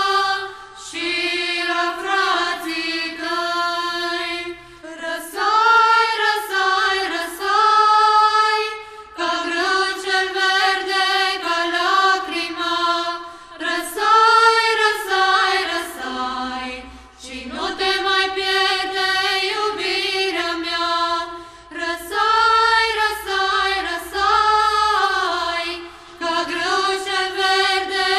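A choir singing in phrases of long held notes, with short pauses for breath between phrases.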